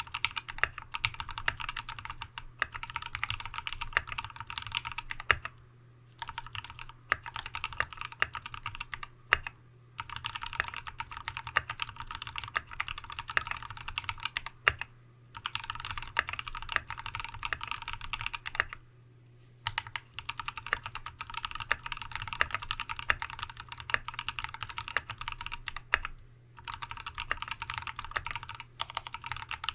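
Fast continuous typing on a TX75v2 custom mechanical keyboard with a brass plate, lubed Tealios V2 linear switches in Cherry top housings, and Dev/tty MT3-profile keycaps. The keystrokes come in rapid runs broken by a few brief pauses.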